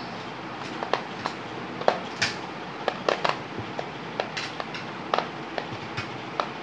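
Marbles clicking and knocking on a plastic marble-solitaire (brainvita) board as they are jumped and lifted off. The clicks are irregular, about two or three a second, and some ring briefly.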